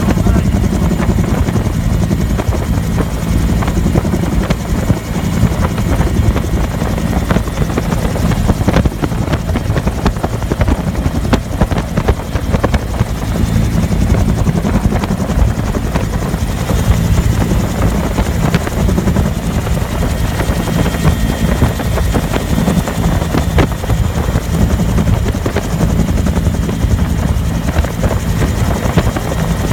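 Bell UH-1 "Huey" helicopter in flight, heard from aboard: its two-bladed rotor and engine make a loud, steady drone that does not change.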